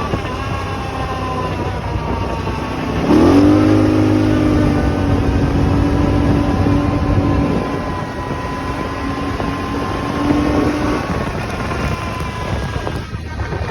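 2024 Polaris Sportsman XP 1000 ATV engine running, revving up sharply about three seconds in, holding there, then easing off near eleven seconds, with a thin whine running over it. This is the off-throttle noise the brand-new machine's owner is asking about, its cause unknown.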